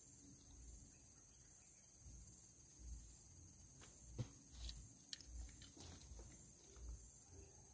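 Insects chirring steadily and high-pitched, faint, with a single sharp click about four seconds in.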